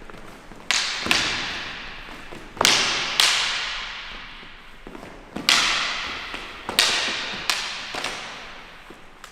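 Steel sword blades clashing in sparring, cutlass against sabre: about eight sharp, irregularly spaced strikes, each leaving a high metallic ring that dies away over a second or so.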